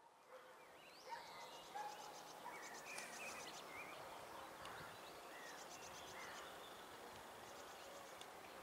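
Faint outdoor birdsong: scattered chirps and several short, rapid high trills over a quiet low background hum.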